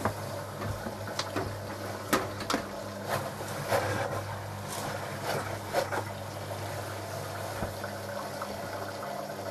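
Bosch WFS 4030 front-loading washing machine filling with water at the start of its wash cycle: a steady rush of water over a low hum. A few sharp clicks and knocks come in the first six seconds.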